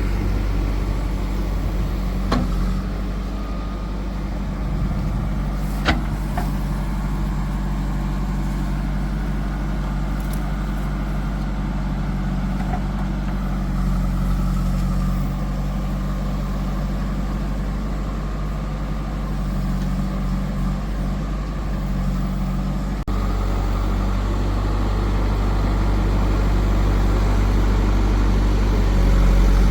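Heavy diesel engines of a backhoe loader and tractors running steadily while mud is loaded, with two sharp knocks in the first six seconds. The engine note changes abruptly about two-thirds of the way through.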